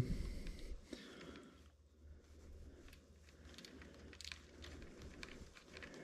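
Faint handling noise: a few light ticks and rubs as fingers thread a locking nut onto a bolt by hand, over a low steady room hum.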